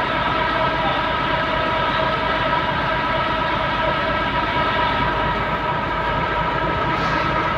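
Industrial machinery running steadily: a continuous drone with several held tones over a low hum, unchanging throughout.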